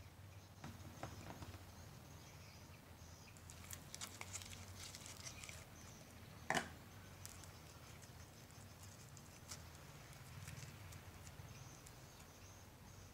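Faint sticky clicks and crackles of slime with small foam beads being squeezed and pulled by hand, busiest about four to five seconds in, with one louder click about six and a half seconds in.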